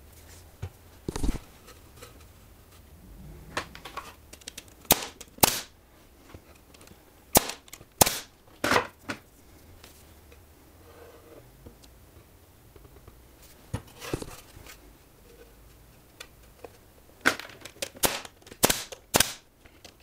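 Pneumatic brad nailer firing brads into a cedar bird-feeder roof, a quick run of sharp shots near the end. Similar sharp cracks come in a few small groups earlier on.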